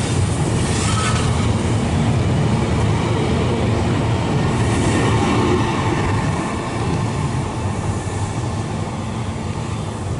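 Electric train passing through a station at speed; its loud, steady rail noise eases off a little after about six seconds.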